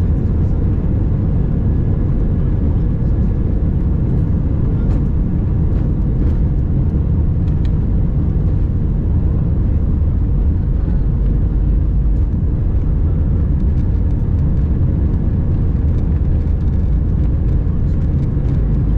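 Airbus A320-232 cabin noise on the takeoff roll: its IAE V2500 engines running at takeoff thrust and the aircraft rolling down the runway make a loud, steady, heavy low rumble, with a faint steady whine above it.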